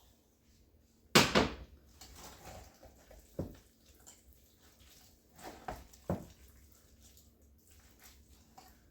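A few knocks and clatters of a utensil against a mixing bowl while food is being mixed, the loudest about a second in and smaller ones around three and a half and six seconds in.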